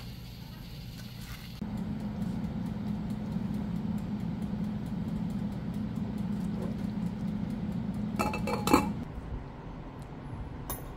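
Tableware clinking: a short clatter of dishes and utensils about eight seconds in, over a steady low hum, with a single light tap near the end.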